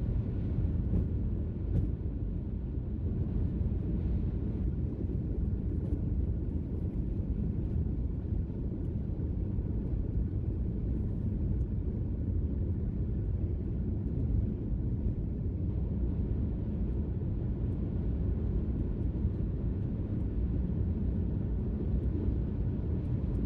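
Steady low rumble of a car driving at highway speed, heard from inside the cabin: engine and tyre noise at an even level.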